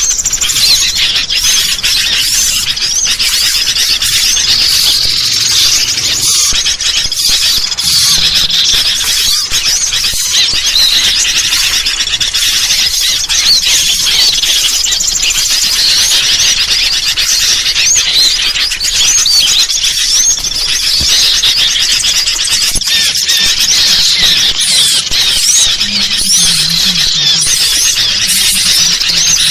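Dense, continuous, agitated chattering of small songbirds, with sooty-headed bulbul (kutilang) calls among many high-pitched chirps. It is a bird-lure recording meant to draw small birds in.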